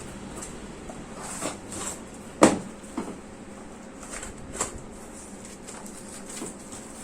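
Scattered clicks and knocks of a product box being handled and opened, with the sharpest knock about two and a half seconds in.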